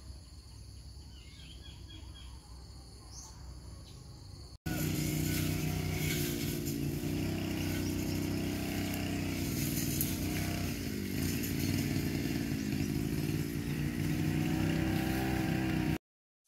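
Steady insect buzzing with a few bird chirps. Then, abruptly, a much louder small engine runs steadily, its pitch dipping and rising about two-thirds of the way through, and it cuts off suddenly near the end.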